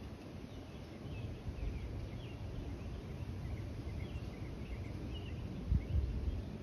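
Small birds chirping in short, scattered notes over a low, steady rumble on the microphone, with a brief low bump about six seconds in.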